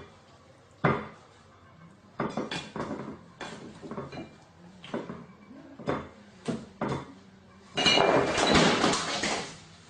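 Hard objects clattering and knocking: a string of separate knocks about once a second, then a louder, longer jumble of clatter near the end.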